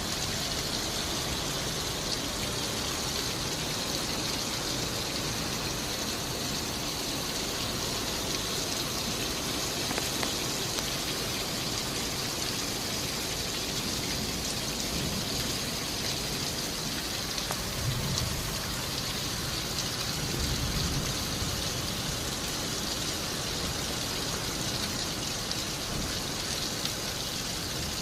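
Heavy rain falling steadily in strong wind, with a few low swells of wind about halfway through.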